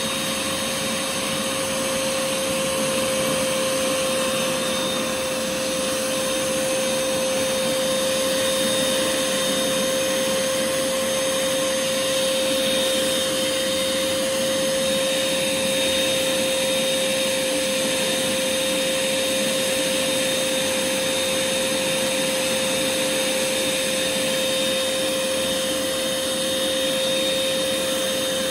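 Small portable carpet spot extractor's vacuum motor running steadily, an even rush of air with a constant whine, while its hand tool is drawn over the carpet.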